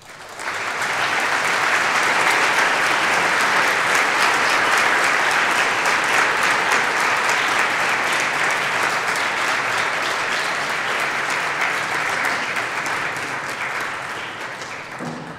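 Large audience clapping: applause that swells within the first second, holds steady, and dies away near the end.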